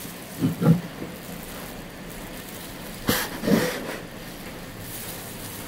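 Two brief bouts of knocking and scraping as a metal loaf tin is handled with oven mitts on a wooden board; the second, about three seconds in, starts with a sharp knock. A steady background hiss runs underneath.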